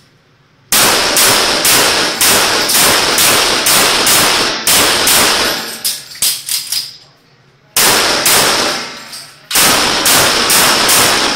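CZ 75 Tactical Sports pistol firing rapid strings of shots, roughly two to three a second, with each shot ringing off the walls of an indoor range. It starts about a second in and breaks off twice, briefly near seven seconds and again near nine, before firing resumes.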